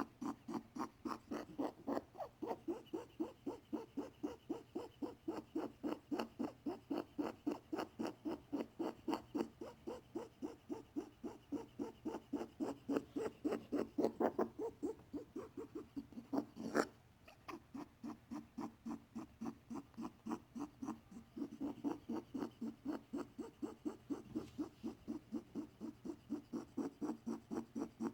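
Pet rabbit making a fast, even series of short clicking or grunting pulses, about four to five a second. This is the unexplained noise that a vet treated with antibiotics just in case. A single sharp click comes about two-thirds of the way through.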